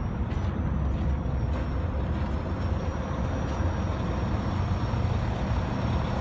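Big truck's diesel engine idling with a steady low rumble.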